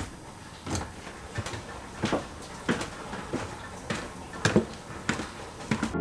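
Footsteps coming down a wooden staircase, one thud about every two-thirds of a second.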